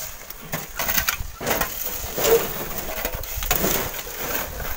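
Gritty crunching and scraping of a heavy stone block on sand and against a wheelbarrow as it is levered in, with irregular knocks.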